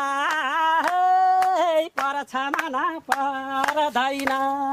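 A high female voice singing long held notes with small pitch wobbles, over sharp hand claps about twice a second.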